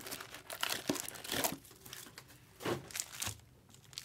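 Foil wrappers of 2023 Panini Select trading-card packs crinkling and tearing as they are handled and ripped open, in a run of irregular crackles.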